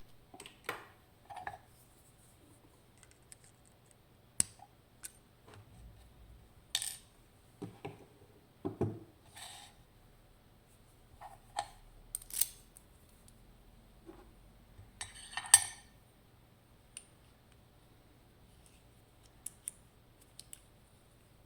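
Small metal clicks, taps and clinks of a DOM RN pin tumbler lock being taken apart after picking, its parts and pins handled one by one. The clicks come irregularly, a second or two apart, with a louder clatter about fifteen seconds in.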